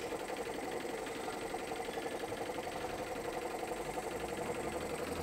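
Small geared DC motor rattling rapidly back and forth, its gearbox reversing direction with each swing of a square-wave drive signal: a fast, even chatter. A low hum comes in about four seconds in.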